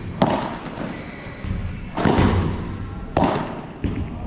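Padel rally: four sharp knocks of the ball being hit and bouncing, spaced unevenly over about four seconds, each leaving a short echo.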